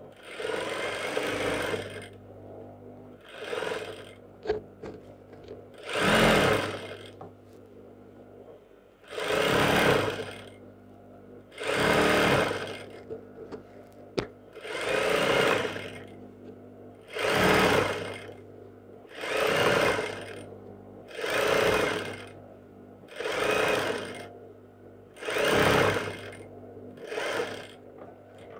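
Juki industrial lockstitch sewing machine stitching in about a dozen short runs of roughly a second each, starting and stopping about every two seconds. It is sewing a loose gathering stitch along the skirt's waist edge.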